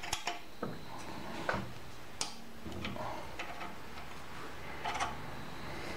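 Light metallic clicks and taps of a small spanner on a lathe's carriage stop as it is set and tightened: a handful of irregular, separate ticks.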